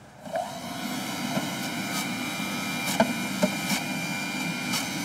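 Electric juicer motor starts about a third of a second in and runs with a steady whine, while beetroot and horseradish pieces are pushed down its chute, with a few sharp knocks along the way.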